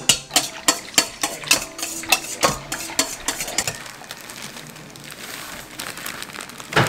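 Wire whisk clinking against a stainless steel mixing bowl, about three to four strikes a second for the first few seconds, then a softer rustling as dry cake mix is poured in from a plastic bag and whisked through. A single knock near the end.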